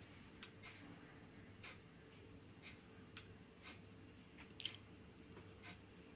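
Relay on a speaker DC-protection board clicking as the protection is tested: four sharp clicks at uneven intervals of about a second or more, the last one doubled, over a faint steady hum.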